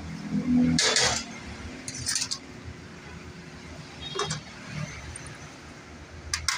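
Scattered metallic clinks and clanks from diesel injector parts and tools being handled, the loudest about a second in, with a few lighter ones after.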